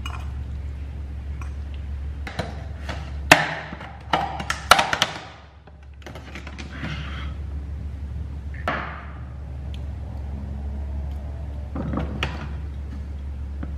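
A plastic food container being handled on a wooden chopping board, with knocks and clatters of the container and its lid as black grapes are taken out. There is a sharp knock about three seconds in, a cluster of clatters just after, and single knocks later. A steady low hum sits underneath.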